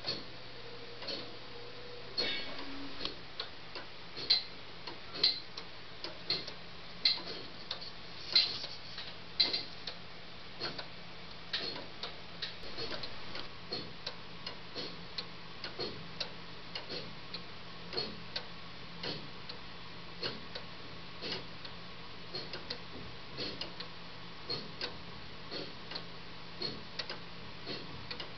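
3D-printed plastic pendulum clocks ticking, their escapements clicking out of step: a louder tick about once a second with fainter ticks in between.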